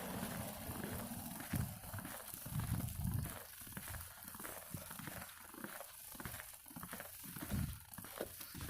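Footsteps crunching through fresh snow, an uneven series of soft thuds with a crisp crackle. Wind rumbles on the microphone at first.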